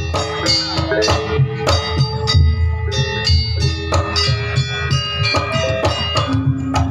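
Live gamelan music for a Banyuwangi janger performance. Drums and struck metal keys play a quick, dense run of notes.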